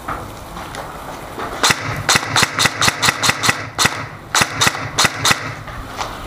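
Airsoft gun firing a quick string of sharp shots, about five a second, with a short break about two-thirds of the way through before a second string.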